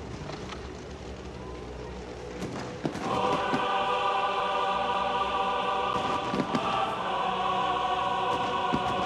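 Several ship horns sound together in a steady, sustained chord, starting about three seconds in after a low engine rumble, with a short break in the middle. A few sharp pops are heard over them.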